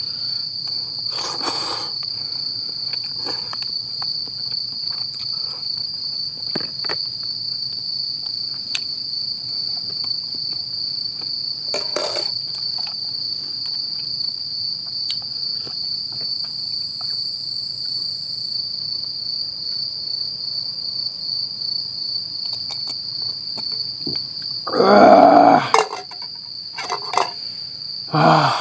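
Crickets chirring steadily in one high, unbroken tone. A few brief handling knocks or clatters come through, the loudest about 25 seconds in and again near the end.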